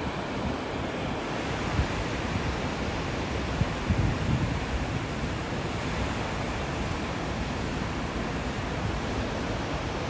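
Steady rushing of a dam spillway waterfall and the fast river below it, swollen with post-blizzard snowmelt runoff. Wind buffets the microphone in a few low gusts, the strongest about four seconds in.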